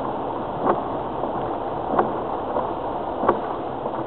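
Cabin noise of a 2002 Land Rover Freelander TD4 driving slowly along a wet, rough track in rain: a steady rumble of tyres, diesel engine and rain on the body, with the windscreen wiper knocking at the end of each sweep, about once every second and a bit.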